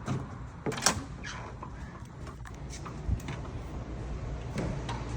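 A few separate clicks and knocks from a keypad-coded door being unlocked and opened: the sharpest click about a second in, a dull thump about three seconds in.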